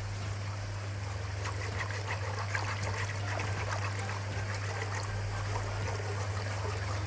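Wire whisk stirring thin béchamel sauce in a metal saucepan, with continuous sloshing and quick small clicks of the wires against the pan. The sauce is still thin and is being whisked steadily over the heat so that it thickens without lumps. A steady low hum runs underneath.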